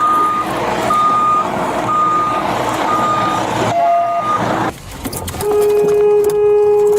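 Heavy machine's back-up alarm beeping about once a second over its engine noise as the backhoe reverses. From about five and a half seconds a long, steady horn blast sounds.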